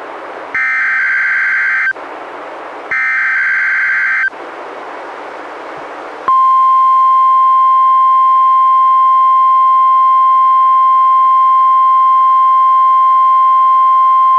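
NOAA Weather Radio test alert: the second and third bursts of the SAME digital header, each a harsh, rasping data screech about a second and a half long, with a second of radio hiss between them. After two seconds of hiss, the 1050 Hz warning alarm tone comes on about six seconds in and holds steady and loud. This is the tone that sets off tone-alert weather radio receivers.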